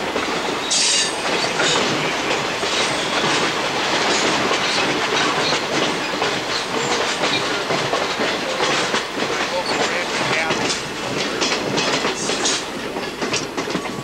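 Passenger train running along the track, heard from on board: a steady rolling rumble of wheels on rails with irregular clicks and clacks, and brief high wheel squeals now and then.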